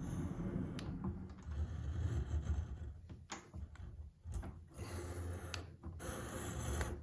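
Single-point broaching on a mini mill: a hardened cutter, pushed down by the quill, scrapes along the inside of a cast-iron casting in repeated strokes, with a few sharp clicks.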